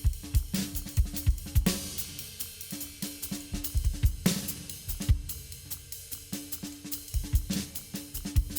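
Acoustic drum kit being played in a steady groove of kick drum, snare and hi-hat, with crash cymbal hits about two seconds in and again past four seconds.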